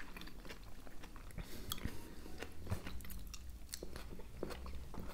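Close-miked mouth sounds of people chewing hard-boiled eggs: faint, irregular small wet clicks.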